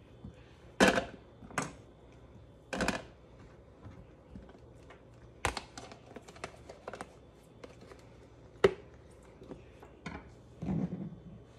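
Handfuls of sliced sausage being dropped into a plastic food-storage container and the lid put on: a scatter of sharp plastic clacks, taps and short rattles, the loudest about a second in and a sharp click near nine seconds.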